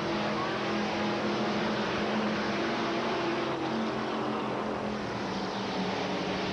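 Several dirt late-model race cars with V8 engines running at racing speed, their engines blending into a steady drone.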